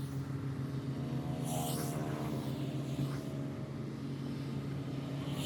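An engine running at a steady speed with an unchanging low hum, with a short hiss about a second and a half in and another near the end.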